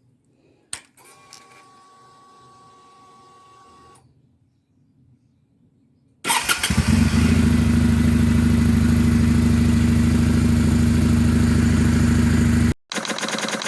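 Kawasaki W800 air-cooled parallel-twin motorcycle engine: a click and a faint steady whine, then about six seconds in the engine starts and settles into a loud, steady idle. The idle cuts off abruptly near the end and a quieter engine sound follows.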